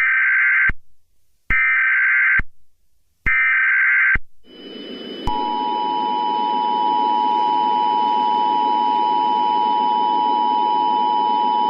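Emergency Alert System SAME header: three short bursts of buzzing data tones about a second apart. Then a steady hiss comes in, followed by the two-tone EAS attention signal held steady.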